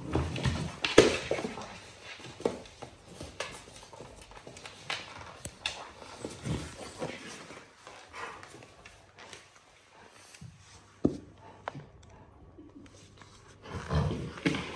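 Two Cane Corso dogs play-fighting: play growls with scuffling and knocks on the floor. The sounds come in irregular bursts, loudest in the first couple of seconds and again near the end.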